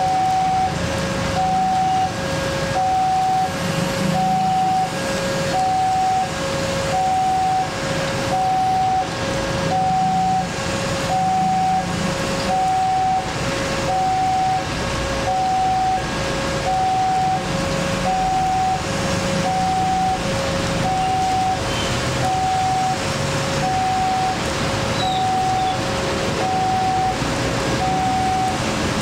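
Electronic railroad level-crossing warning bell sounding its two-tone alarm, a higher and a lower tone alternating steadily about once a second, signalling that a train is approaching and the crossing is closed. Rain hiss and idling traffic sit underneath.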